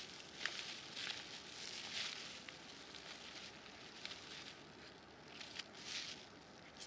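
Faint rustling with a few light crackles scattered through it.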